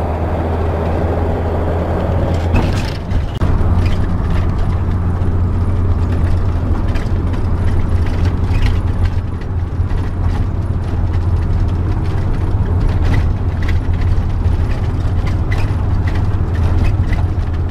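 Steady low engine and road drone of a motorhome driving, heard inside the vehicle, with frequent clicks and rattles on top.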